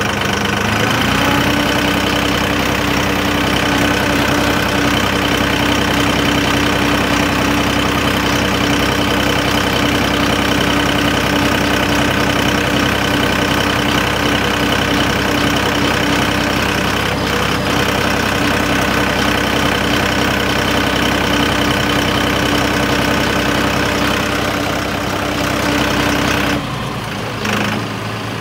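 Tractor engine running steadily while the tractor drives along, the engine speed stepping up about a second in and held, then throttled back near the end.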